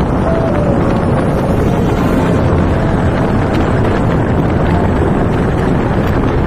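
Steady wind rush over the phone's microphone while riding a Yamaha Mio Fazzio scooter, with the scooter's running and road noise underneath.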